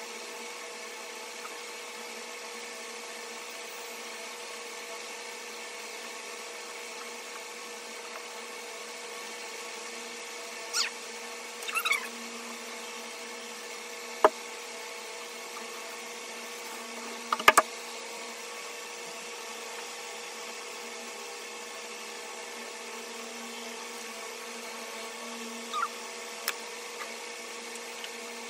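A steady hum with a few brief squeaks and sharp clicks, about half a dozen in all, the loudest near the middle.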